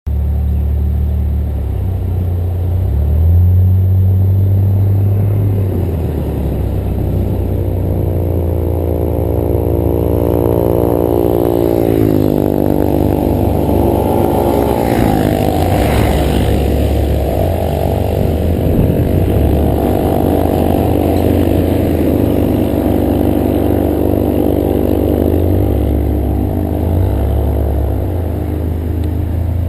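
Motor vehicle engine running while driving along slowly over a steady low rumble, its pitch sliding down about twelve seconds in as it slows, then rising and falling gently.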